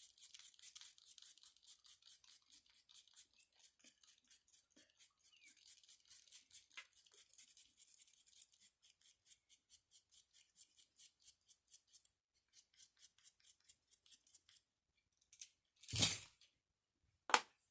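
Quick, even scraping strokes, about four or five a second, of a tool scraping the surface of a craft squishy; they stop about 14 seconds in. A louder rustle follows about two seconds later, and a sharp click comes near the end.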